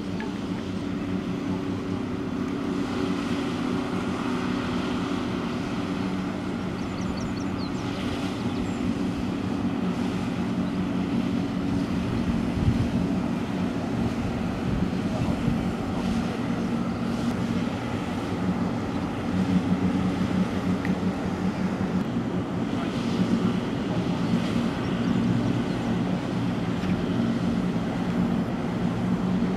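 Engines of fast military assault boats running at speed, a steady droning hum over the rush of their wake. The hum drops somewhat lower in pitch about halfway through as the boats pass.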